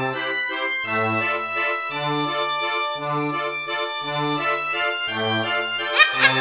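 Background music: sustained keyboard chords over a bass note that changes about once a second. Near the end a few sharp clicks and a rising sweep come in.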